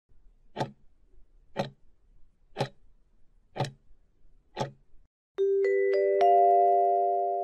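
Countdown-timer clock sound effect ticking once a second, five ticks, as the timer runs out. About five and a half seconds in, a rising four-note chime like a glockenspiel or marimba rings out and keeps ringing: the time-up signal as the answers are revealed.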